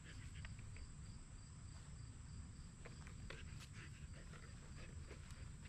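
Faint outdoor ambience: insects chirping in a steady, evenly pulsing rhythm over a low rumble, with a few faint clicks and rustles.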